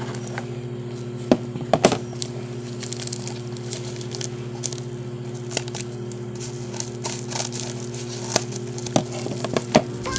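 Parcel packaging being torn open and crinkled, with scattered crackles and a few sharper snaps, over a steady low hum.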